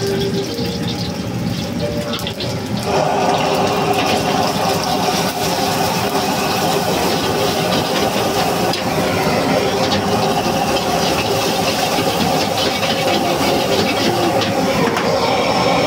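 Egg sizzling in hot oil in an iron wok over a high-flame gas burner. The sizzle jumps louder about three seconds in as the egg goes into the oil, with a steel ladle scraping against the wok.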